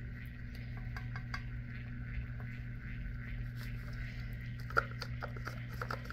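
Steady low hum of a cup turner's small motor slowly rotating an epoxy-coated tumbler. Soft scattered clicks and ticks as gloved hands work a wooden stir stick and a plastic mixing cup, with one sharper click near five seconds in.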